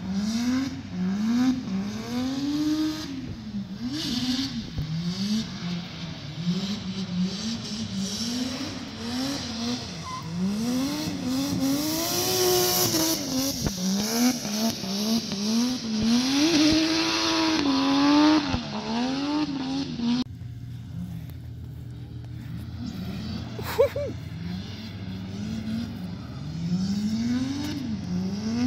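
Nissan S14 drift car's engine revving up and down again and again as it drifts through the corners, with tyre squeal loudest as it slides past close by. After about 20 seconds it sounds farther off and duller.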